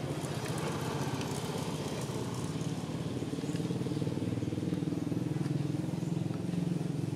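An engine running steadily at idle, with an even low hum.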